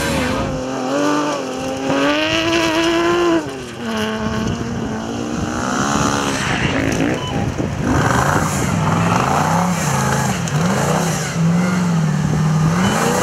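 Off-road rally car's engine revving hard. Its pitch climbs, drops sharply about three seconds in, then rises and falls again and again as the car accelerates and lifts off.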